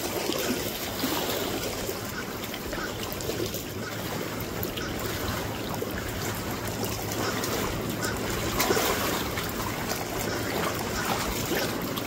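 Small waves lapping steadily at a lagoon shoreline.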